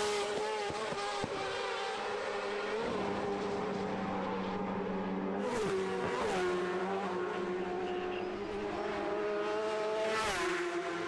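Road-racing motorcycle engines at high revs, their pitch stepping and gliding with gear changes. Bikes rush past close by near the start, around the middle, and again near the end.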